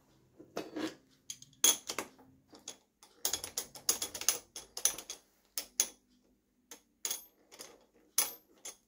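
Irregular sharp metallic clicks and rattles, some in quick clusters, as a milling cutter head is held in a MAHO milling machine's horizontal spindle and tightened with a long wrench.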